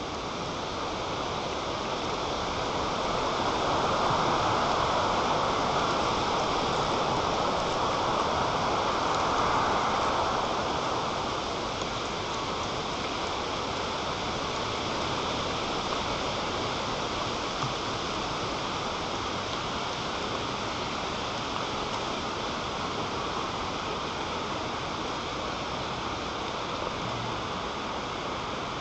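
Strong wind gusting, a steady rushing noise that swells louder from about three to ten seconds in, then eases back to an even level.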